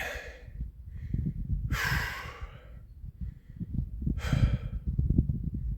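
A man breathing heavily: three loud, hissy exhales or sighs about two seconds apart, over a steady low rumble.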